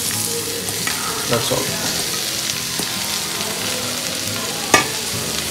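Mushrooms just added to a pan of onions and coconut, sizzling as they fry in hot coconut oil while being stirred. One sharp knock comes near the end.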